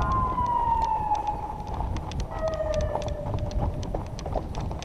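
A fat bike rolls over a railroad track, with a low rumble and scattered rattling clicks. Over it a wailing tone falls slowly, and then a second, lower one falls slowly too.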